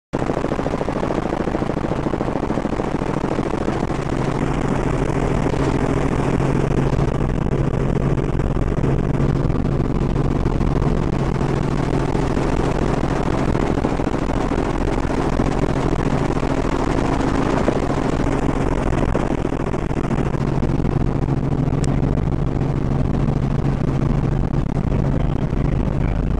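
Robinson R44 Raven II helicopter in steady cruising flight: its piston engine and rotor make an even, unbroken drone with a low hum.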